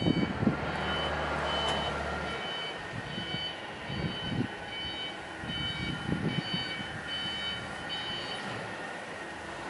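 Electronic warning beeper sounding a repeated high beep, on and off about every 0.7 s, over a low electric motor hum that stops about two seconds in, with a few dull knocks.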